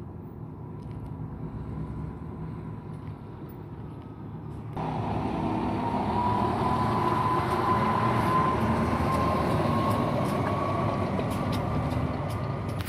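Steady low rumble of a vehicle engine, which becomes abruptly louder about five seconds in, with a faint whine slowly rising in pitch.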